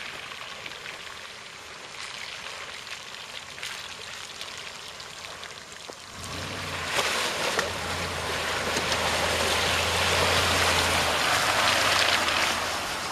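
A Mitsubishi Pajero Sport SUV drives slowly through a deep puddle, its engine humming low as water splashes and sloshes around the tyres. It is fainter at first, then grows louder from about six seconds in as the SUV comes close.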